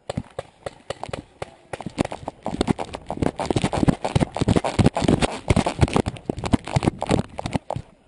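Running footsteps crunching on dry dirt and gravel, about two to three strides a second, with the runner's gear rattling, picked up by a camera worn on the runner. The footsteps start suddenly.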